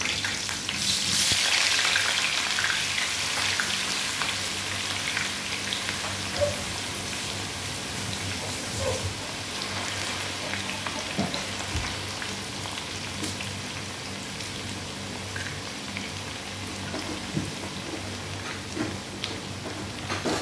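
Raw potato wedges tipped into hot oil in a frying pan, the oil sizzling hard as they go in and loudest in the first few seconds. It then settles into a steady deep-fry sizzle with occasional small pops.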